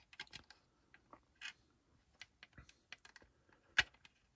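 Scattered light clicks and taps of a plastic scale-model car body and chassis being handled and shifted in the hands, with one sharper click a little before the end.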